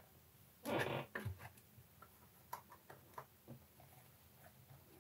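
Faint handling noise of small styrene plastic model parts on a cutting mat: a short rustling scrape about three-quarters of a second in, followed by scattered light clicks and taps as the pieces are picked up and set down.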